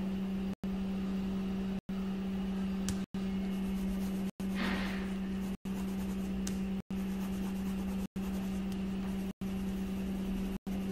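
A steady low hum with a strong even tone, cut by brief silent gaps about every second and a quarter, and a short rustle about five seconds in.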